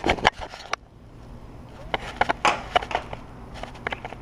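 Sharp plastic clicks and taps as a vertical blind carrier is pried and popped out of its headrail with a small flat screwdriver blade, then a quieter stretch with a few scattered clicks as fingers work the carrier loose.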